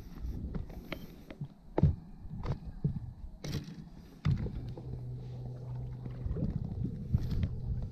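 Knocks and clicks of a largemouth bass being swung in on a rod and unhooked over a boat's bow, with a low wind rumble on the microphone. A steady low hum starts abruptly a little past halfway.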